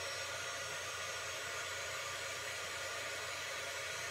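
Embossing heat tool blowing steadily, an even rushing hiss over a low motor hum, as it heats embossing powder until the powder melts.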